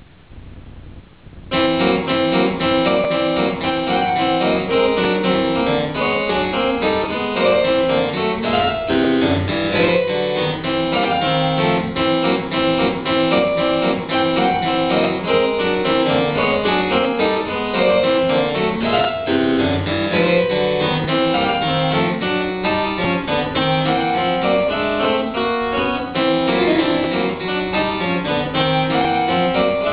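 Solo harpsichord playing a folk-dance piece in quick, even, densely plucked notes, beginning about a second and a half in after a brief pause.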